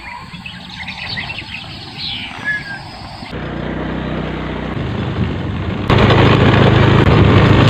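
A few short bird chirps over outdoor background noise. After a cut, a steady rushing noise with a low hum follows, and it gets suddenly louder about six seconds in.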